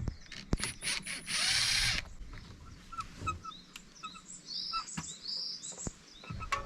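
A power drill runs in one short burst about a second in, among scattered knocks and clicks of work with tools, while birds chirp in the background.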